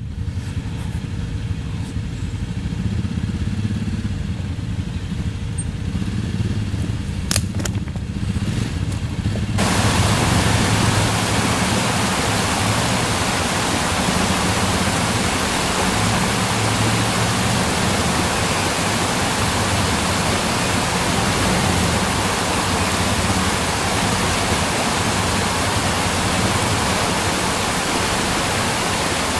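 Off-road vehicle engine running low and steady. About ten seconds in, a loud, even hiss suddenly sets in and carries on over the engine.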